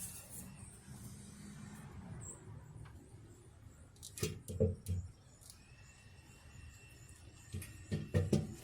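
Two short clusters of knocks and clunks, about four seconds in and again near the end, over a faint low hum: metal parts and tools being handled while the intake manifold is worked loose.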